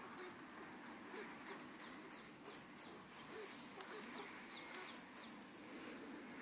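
A bird calling: a run of short, sharp, high notes, each falling in pitch, repeated about three times a second for some four seconds, then stopping.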